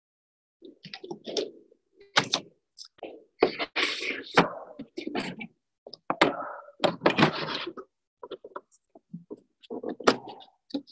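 A cardboard shipping box being handled and short PVC pipe pieces knocked and pushed into holes in it: a string of irregular thunks, knocks and cardboard scrapes, broken up by dead-silent gaps.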